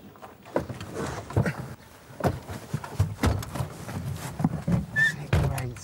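Knocks, bumps and rustling as two men climb into a Reliant Kitten and settle into its seats, with repeated short clicks and thuds.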